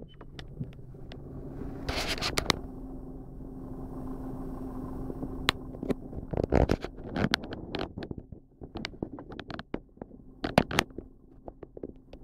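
Inside a car: low road rumble dies away early, then a steady low engine hum runs on. A brief rush of noise comes about two seconds in, and irregular knocks and clicks come through the second half.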